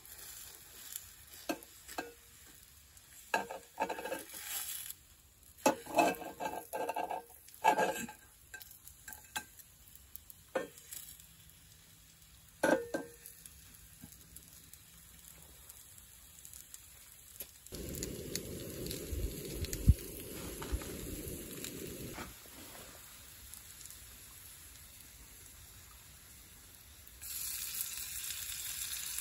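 Food being turned in a cast iron skillet on a portable gas stove: a string of clinks, knocks and scrapes of a fork against the pan, then a few seconds of low rumbling midway. Near the end, sizzling frying rises and holds steady.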